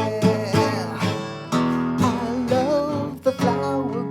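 Acoustic guitar strummed in a steady rhythm under a sung melody line.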